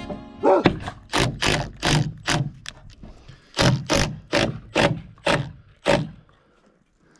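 A series of sharp knocks, about two to three a second, in two runs of about six strokes with a short pause between.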